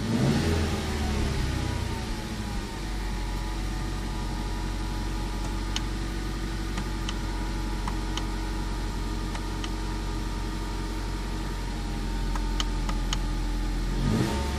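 Ford Mustang 2.3 EcoBoost turbocharged four-cylinder falling back from a rev, then idling steadily for about ten seconds, with a few light clicks in the middle. Near the end the engine revs up again.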